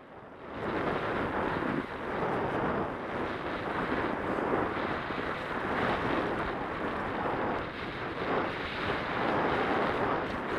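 Wind rushing over a skier's body-worn camera microphone during a downhill run, mixed with the hiss of skis on groomed snow, swelling and easing with the turns. It rises from a quiet start within the first second.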